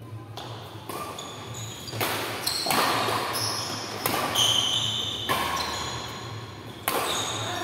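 Badminton rackets striking a shuttlecock in a fast doubles rally: a string of sharp hits about one a second, echoing in a large hall.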